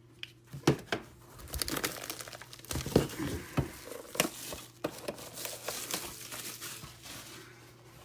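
Foil trading-card pack wrappers being torn open and crinkled: a busy run of crackles and sharp rips that dies down near the end.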